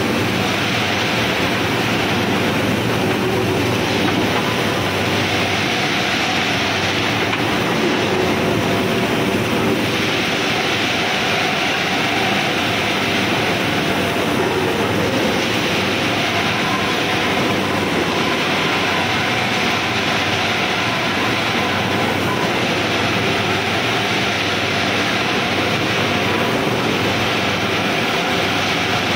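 Hot steel rolling mill running: a steady, loud industrial din of the roll stands and their drives as a red-hot bar is rolled.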